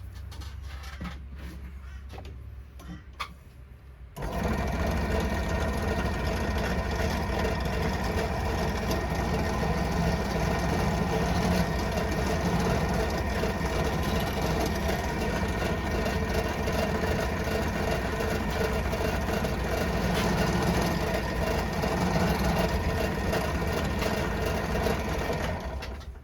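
Small electric motor tool starting abruptly about four seconds in and running steadily with an even whine until just before the end, after a few seconds of light handling noises.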